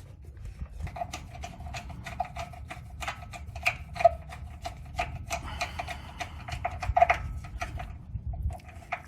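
Quick, irregular clicking and rattling of small plastic and metal parts being handled, as wires and their rubber seal are worked up into a power jack's housing; many clicks carry a short ringing note, with low handling rumble underneath.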